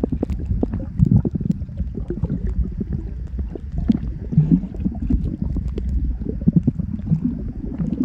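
Muffled underwater sound picked up by a camera held underwater over a coral reef: a constant low rumble of moving water with many irregular small clicks and knocks.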